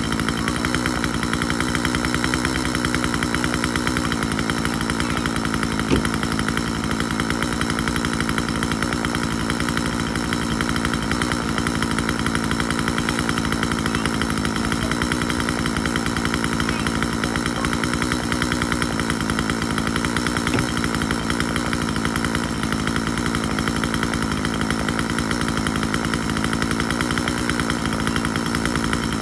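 Husqvarna 136 two-stroke chainsaw engine running steadily at a constant speed, after a carburetor cleaning brought it back to life.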